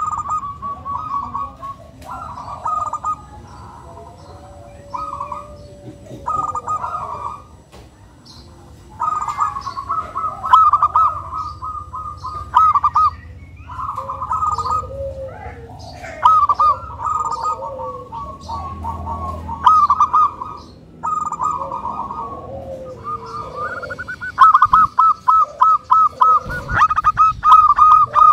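Zebra dove (local perkutut) singing: repeated phrases of rapid staccato cooing notes, some about a second long and others running three or four seconds, with softer, lower cooing between phrases.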